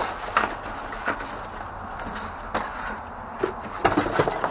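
Hard objects knocking and clattering as discarded items are handled and shifted in a dumpster: a handful of irregular sharp knocks, bunched together near the end.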